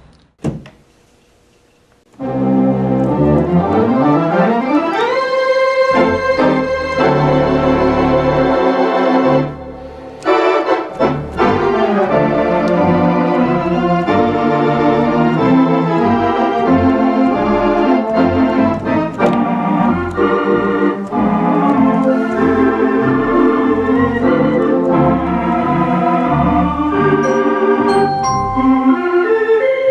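Theatre organ played with full chords. After about two seconds of near quiet, a rising run up the keyboard leads into held chords, with a brief drop in level about ten seconds in.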